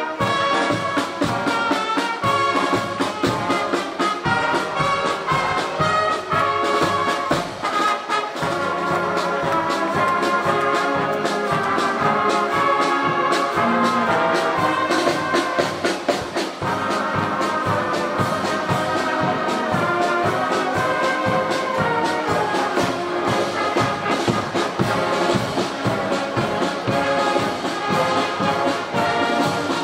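Marching brass band playing a march, with trumpets and trombones carrying the tune.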